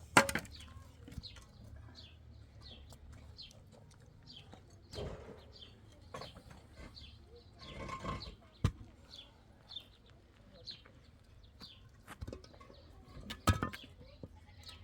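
A small bird chirping over and over, about two short chirps a second, with a few sharp knocks, the loudest just as it begins and another near the end.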